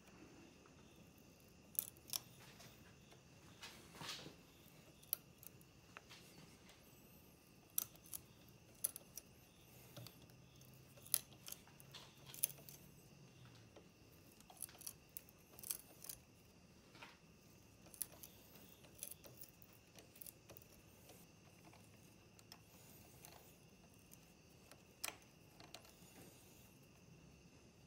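A hand tap turned in a bar tap wrench, cutting threads in drilled steel holes: faint, irregular sharp metallic clicks and ticks as the wrench is worked back and forth.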